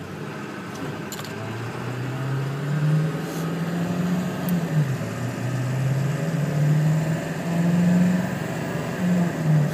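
The 7.3-liter Powerstroke turbo diesel V8 of a 1999 Ford F-250, heard from inside the cab as it pulls away under acceleration. Its note climbs through the gears, dropping about halfway through and again near the end as the transmission upshifts; the shifts are perfect.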